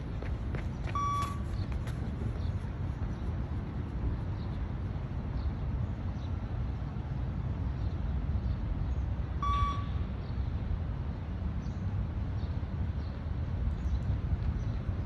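Two short electronic beeps of a shuttle-run beep-test recording, about eight and a half seconds apart, each a single high tone; each beep marks when the runner must reach the next line. Under them is a steady low rumble.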